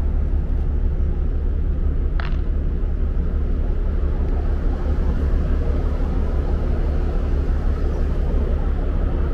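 Steady, loud low rumble of wind buffeting the microphone on a ferry's open deck, with one short high chirp about two seconds in.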